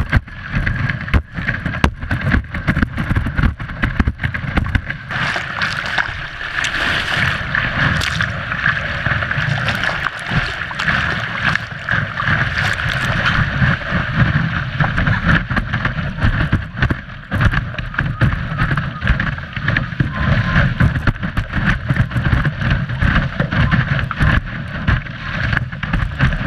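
Windsurf board planing fast over choppy water, picked up by a camera on the board's nose: wind buffets the microphone and water rushes and sprays. Irregular knocks and slaps come from the hull hitting the chop, and the hiss is strongest in the middle.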